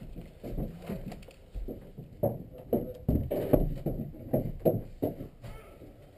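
A series of irregular knocks and thuds, a few of them loud, bunched in the middle.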